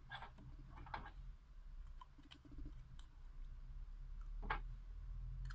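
Plastic fountain pen parts being screwed back together by hand: a few short scrapes and faint clicks of plastic threads and barrel against fingers, the loudest scrape about four and a half seconds in, over a steady low hum.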